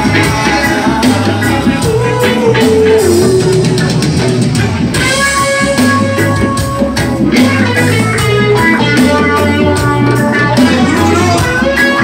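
Live band playing, with electric guitar, keyboard and drum kit.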